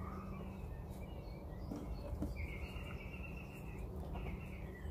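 Quiet outdoor background: faint bird chirps over a steady low hum, with a couple of faint soft clicks about two seconds in.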